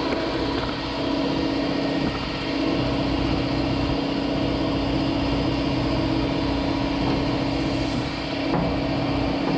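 A machine running steadily with a constant hum and a broad rushing noise that never lets up.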